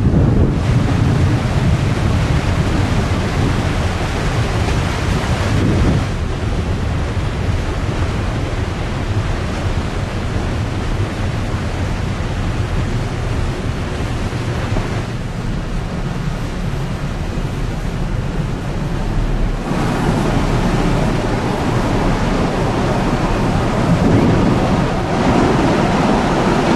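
Large ro-ro ferry moving close by: a steady low rumble with water rushing and churning along the hull from its bow wave, and wind buffeting the microphone. The mix changes abruptly a few times.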